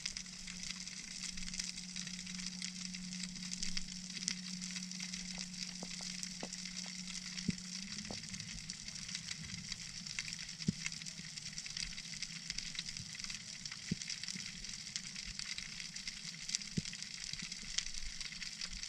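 Underwater ambience: a steady crackling fizz with scattered sharp clicks, the sound of snapping shrimp on a rocky seabed. A low steady hum underlies it and stops about eight seconds in.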